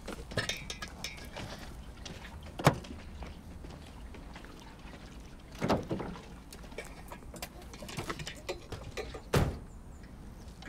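Knocks and clunks of a metal fuel can and its hose being handled, with a sharp knock about a third of the way in and a heavier thump near the end, over a low steady background.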